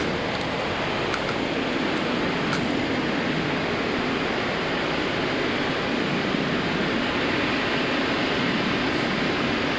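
Ocean surf washing steadily onto a sandy beach, a continuous roar of broken waves with no single wave standing out.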